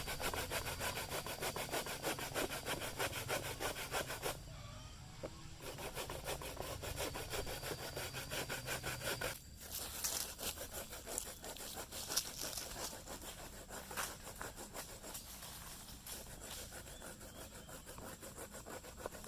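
Coconut being grated by hand: fast, steady rasping strokes that pause briefly about four seconds in and go on more lightly after about nine seconds.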